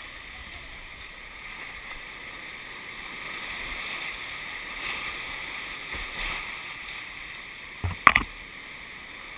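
Rushing whitewater rapids heard from a kayak in the current: a steady hiss of churning water that swells a little partway through. Near the end come two sharp knocks close together.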